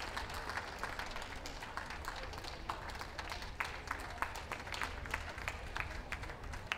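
Scattered applause from spectators, with individual hand claps standing out.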